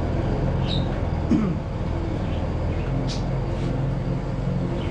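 Steady low mechanical hum of a motor running, with a few short high-pitched sounds on top.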